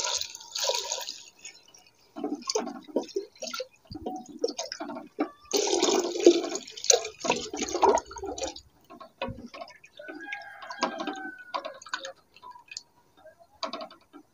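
A stream of water poured into an aluminium pressure cooker over lentils fried in masala, splashing in a few bursts over the first eight seconds or so. After that a wooden spoon stirs the watery dal, with scattered small clicks.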